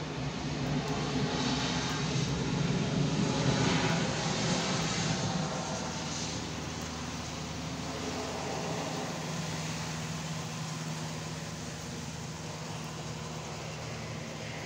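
Passenger jet airliner's engines during its landing rollout on a wet runway: a broad rumble and hiss that is loudest a few seconds in, then eases to a steadier, quieter hum as the plane slows.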